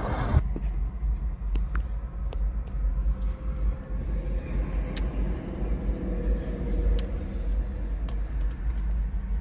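A steady low rumble, with a few faint ticks.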